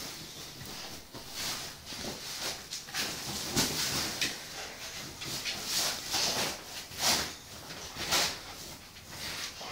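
Small dog humping a cushion, breathing hard in a run of hissy puffs, roughly one a second, with some rustling.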